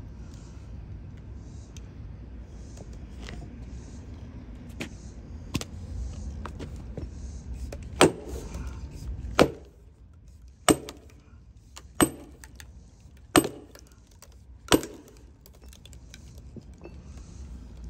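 Sledgehammer striking a steel splitting wedge driven into a hickory round: six ringing metal-on-metal blows, about one every 1.3 seconds, starting about eight seconds in.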